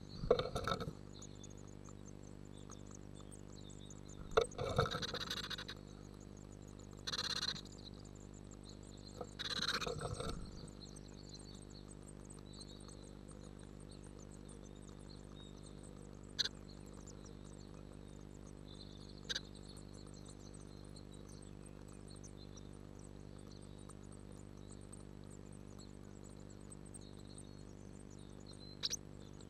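Inside a nest box: a steady electrical hum runs under faint high begging cheeps of great tit nestlings. Several short bursts of rustling and wing-flutter come in the first ten seconds as a parent great tit arrives to feed the chicks, and a few sharp clicks follow later.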